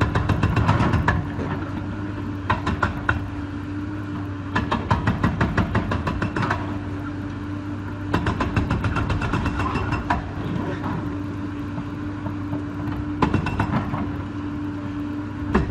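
Excavator engine running steadily under load, with repeated bursts of rapid knocking as the machine's attachment breaks into the building's concrete.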